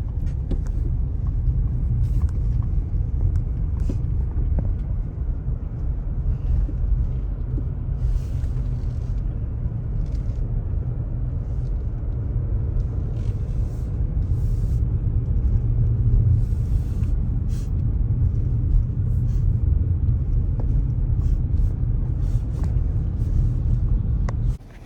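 Steady low rumble of a car driving, engine and road noise heard from inside the cabin, with a few faint ticks and knocks; it stops suddenly near the end.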